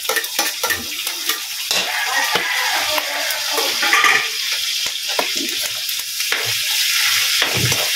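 Pork with garlic, onion and tomato sizzling as it sautés in a steel wok on a gas burner. A metal spatula scrapes and knocks against the wok as the food is stirred.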